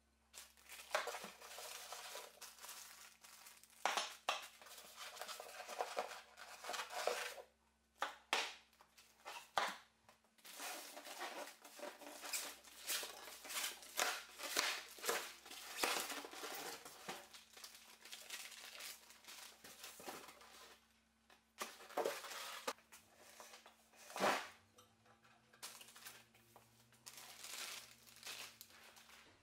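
Unpacking noise: plastic packing bags crinkling and polystyrene packing pieces rubbing as a benchtop spindle sander is pulled from its box, in irregular bursts with a few sharp knocks of parts being handled.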